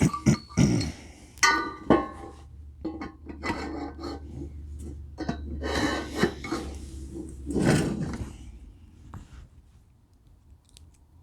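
Metal assembly hardware and parts (bolts, nuts, stand pieces) clinking and knocking as they are handled and fitted. One clink about a second and a half in rings briefly. A low hum runs underneath through the middle, and the handling dies down near the end.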